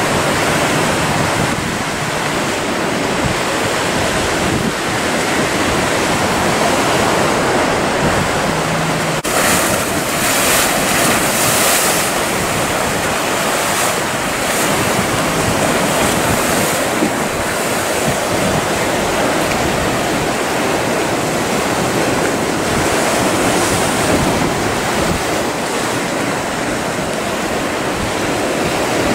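Rough sea with waves breaking and wind buffeting the microphone: a steady loud wash of noise. About nine seconds in it changes abruptly to a brighter hiss.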